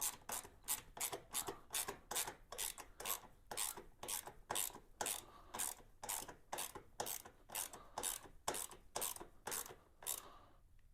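Ratchet wrench with an 8 mm socket being worked back and forth to run down a battery hold-down bolt, its pawl rasping in an even run of about four strokes a second. It stops near the end, once the bolt is tight.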